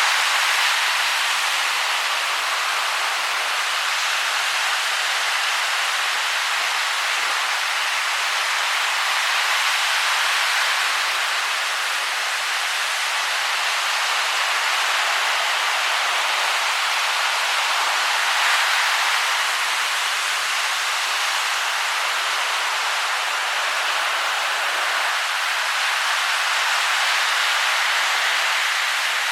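Rough Atlantic surf breaking and washing up the beach: a steady hiss of churned water that swells a little every several seconds.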